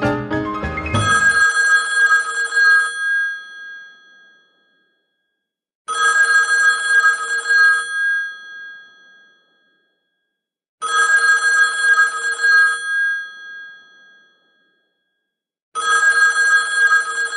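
Black rotary desk telephone's bell ringing for an incoming call: four rings of about two seconds each, roughly five seconds apart.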